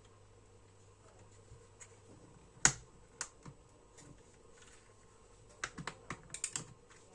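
Sharp clicks and taps of the goggles' housing and small parts being handled during disassembly: one loud click about two and a half seconds in, a few lighter ones after it, then a quick run of about eight clicks near the end.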